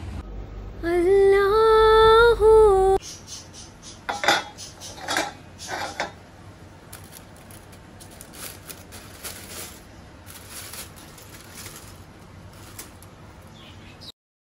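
A short sung phrase, then aluminium foil crinkling and rustling as it is peeled off the top of a metal cooking pot, with sharp crackles at first and softer rustling after; the sound cuts off just before the end.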